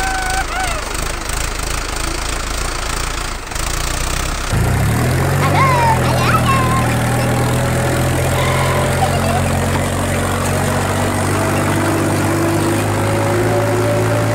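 Tractor engine running: a low, pulsing beat for the first few seconds, then about four and a half seconds in a brief rise in pitch and a steady, even drone.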